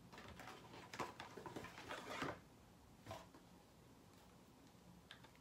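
Rustling and light clicks of a makeup palette and its packaging being picked up and handled, lasting about two seconds, then a couple of single soft taps over quiet room tone.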